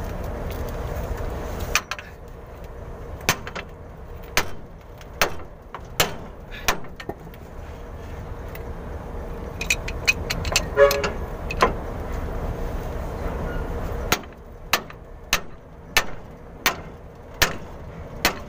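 Sledgehammer striking the handle of a pipe wrench clamped on a truck differential's pinion nut: repeated sharp metal clangs, in runs of about one every half second to a second, to break loose a very tight nut.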